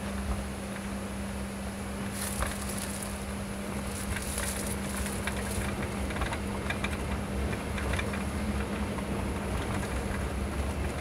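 Bus driving on a rain-wet highway, heard from inside the cabin: steady engine drone with a constant low hum and tyre hiss from the wet road, with scattered light clicks and rattles.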